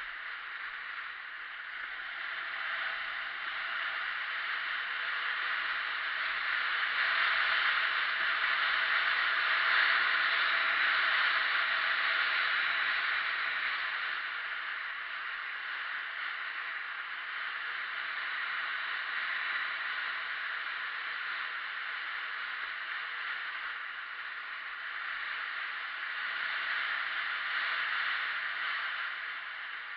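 Steady hiss and scrape of skis sliding over groomed piste snow, swelling louder about a quarter of the way in and again near the end.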